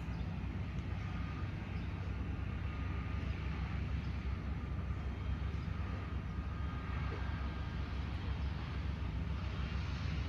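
Jet airliner engines on approach to land, a steady deep rumble with a faint whine over it.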